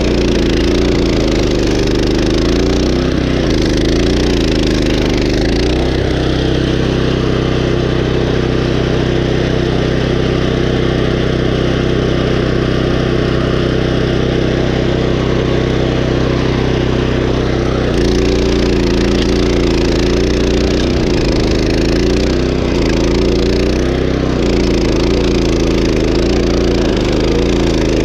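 Gasoline engine of a walk-behind stump grinder running hard, its pitch dipping and recovering about once a second as the cutter wheel bites into the stump. About six seconds in it settles to a steady, even pitch, then the repeated dips return for the last ten seconds.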